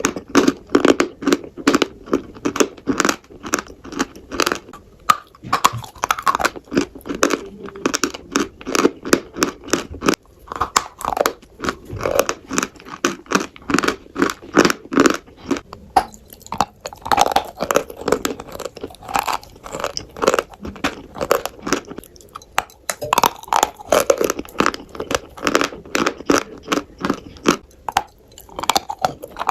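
Crunchy food being bitten and chewed close to the microphone, in quick runs of crisp crunches with short pauses between them.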